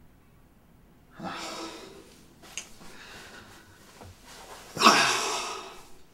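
A man's two loud, breathy exhalations without words, the second louder and trailing off over about a second.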